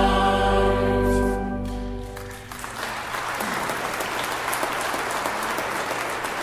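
A choir holds the final chord of a hymn, which cuts off about two seconds in. Audience applause follows and carries on.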